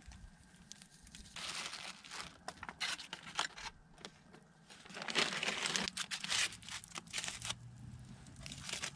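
Plastic zip-top bag and aluminium foil crinkling as they are handled, in rustling bursts: one about a second and a half in, a longer one from about five to seven seconds in, with small clicks between.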